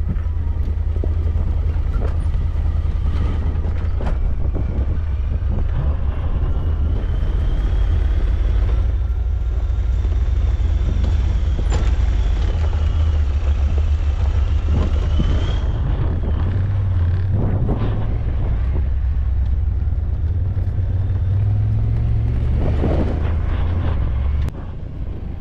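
A vehicle's engine running steadily while under way, with road and wind noise over it. Near the end the engine note drops briefly, then picks up again.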